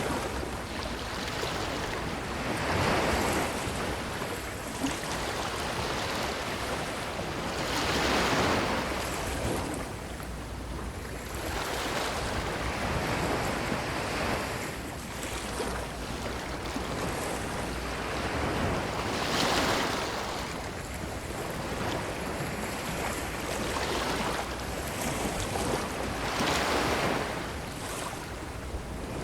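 Ocean waves breaking and washing up a beach, the surf swelling and fading every four to six seconds.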